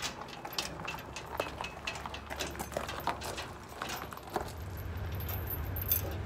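Crunching steps and small wheels rolling on gravel as a boat trailer is hauled by hand, with light metal rattles. About four seconds in it changes to metal clinking at a pickup's trailer hitch over a low steady hum.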